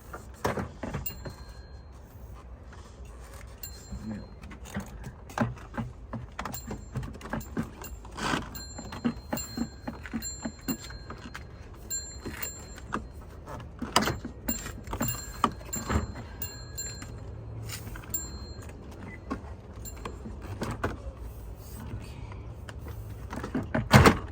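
Irregular small clicks, taps and clatter of hands and tools working on a car door's handle and panel parts, over a steady low hum, with one loud knock near the end.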